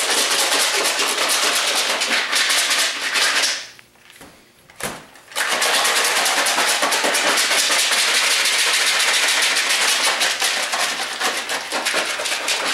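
Cast lead bullets and BBs rattling inside a plastic container shaken hard by hand, tumbling the bullets in orange powder-coat powder to coat them. A dense, fast rattle that stops for about two seconds around four seconds in, with a single knock in the gap, then starts again.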